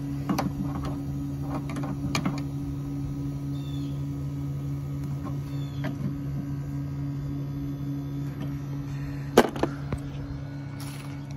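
Daikin mini-split outdoor unit running in heating mode with a steady low hum. An adjustable wrench clicks and taps on the brass service-valve fittings several times, loudest about nine seconds in.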